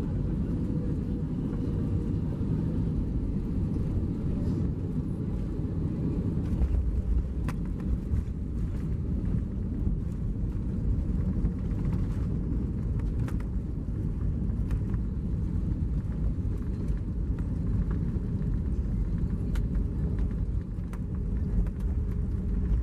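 Cabin noise of an Airbus A320-214 landing and rolling out on the runway with ground spoilers deployed: a steady low rumble of engines and wheels that grows stronger about six and a half seconds in, with light rattling clicks.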